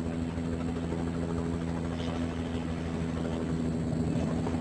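Helicopter running with its rotor turning: a steady engine drone under a fast, even beat of the rotor blades.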